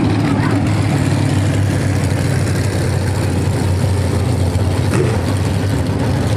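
Sprint car engines idling: a steady, loud, low rumble.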